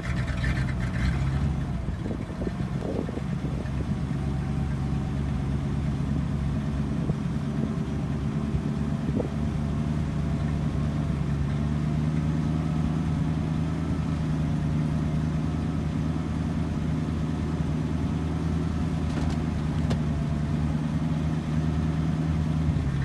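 1966 Ford N700 truck's engine running steadily at a fast idle, powering the hydraulic hoist as the dump bed is raised.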